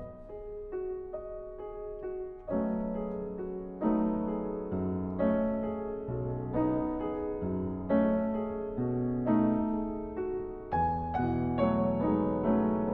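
Solo piano playing a contemporary classical piece: soft, sparse notes at first, then fuller and louder chords and repeated struck notes from about two and a half seconds in.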